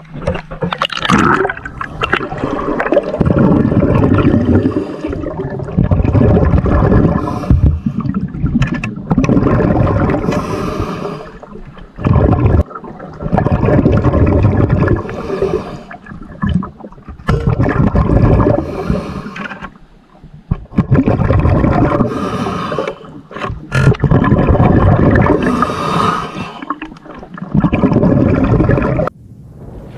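Loud water gurgling and bubbling in stretches of a few seconds, broken by short dips and abrupt cuts.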